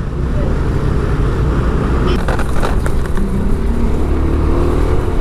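Street traffic with a vehicle engine running steadily underneath.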